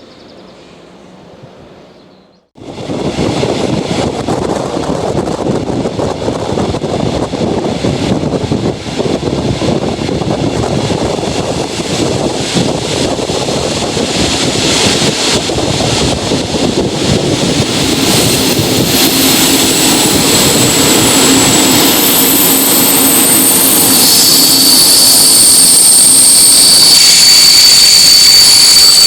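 Loco-hauled regional passenger train running, its rushing noise starting abruptly after a couple of seconds of quiet and slowly growing louder. About two-thirds through, high steady brake-squeal tones come in, joined near the end by a strong piercing squeal as the braking sets in.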